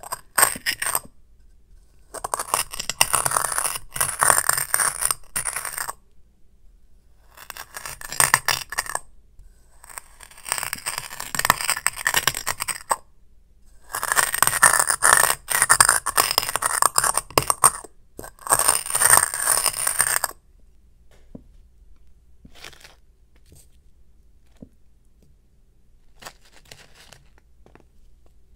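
A glass dish grinding against a sand-coated glass jar: gritty crunching and scraping of glass on glass with sand between. It comes in repeated strokes of one to four seconds for about the first twenty seconds. After that only a few faint, soft crackles of sand are left as the sand is crumbled.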